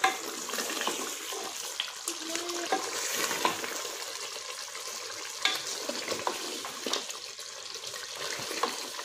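Mutton frying in oil with yogurt and ginger-garlic paste in a metal pot, sizzling steadily while a spatula stirs and scrapes through it, with scattered scrapes. This is the bhuna stage of a curry, the masala being fried down.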